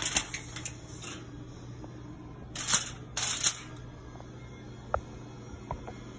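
Aluminium foil crinkling as it is handled over a disposable foil baking pan, in two bursts of about a second each, followed by a few faint light clicks.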